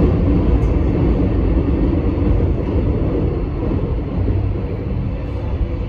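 Steady rumble of an Alstom X'Trapolis electric suburban train running at speed, heard from inside the carriage: wheels on the rails and the running gear. It eases slightly quieter toward the end.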